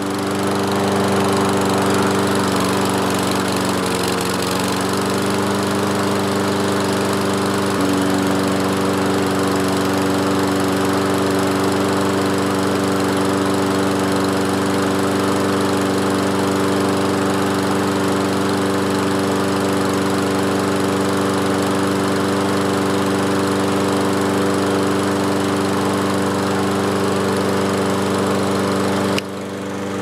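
Toro Recycler walk-behind mower's single-cylinder Kohler engine, just restarted and running steadily while it warms up on its automatic choke. Its tone shifts slightly about eight seconds in.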